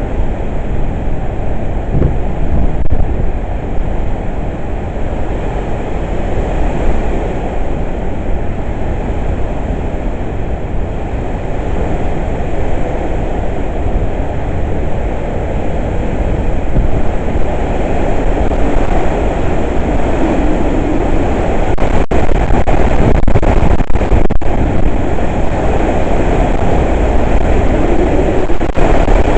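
Hurricane winds blowing hard and continuously, with a deep rumble of wind buffeting the microphone that grows stronger in the second half. A few brief sharp clicks come about two-thirds of the way through.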